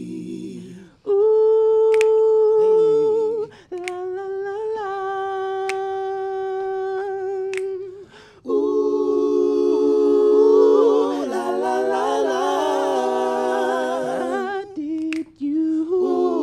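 Male a cappella vocal group singing wordless harmonies. One voice holds a long note, then another, before the whole group comes in with a full chord about eight seconds in. Short breaks separate the phrases.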